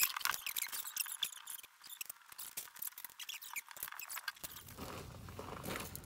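Fast-forwarded sound of hands reassembling a string trimmer: a dense run of high-pitched clicks and squeaks. About four seconds in it cuts to a steady low outdoor background.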